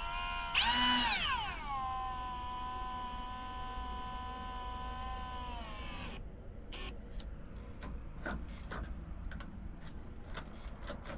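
Cordless drill-driver running the keypad lock's mounting screws. The motor whine climbs to a peak about a second in, then drops to a lower steady pitch as the screws snug down, and stops about six seconds in. A few light clicks of handling follow.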